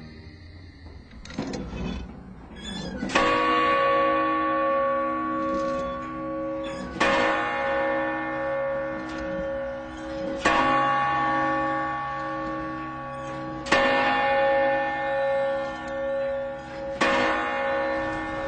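Large bronze tower bell, hammered by the bronze figures of a Venetian clock tower, struck five times about three and a half seconds apart. Each stroke rings on with a slowly pulsing hum until the next.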